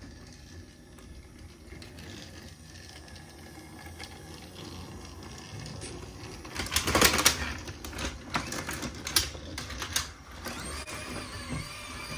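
Battery-powered TrackMaster toy engine whirring along plastic track. About seven seconds in comes a loud burst of clattering, followed by a few separate sharp clicks.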